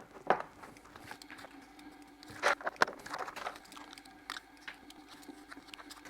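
Scattered light clicks and taps of small items being handled in a plastic parts organizer box with compartments, the clearest about a third of a second in and twice around two and a half seconds in.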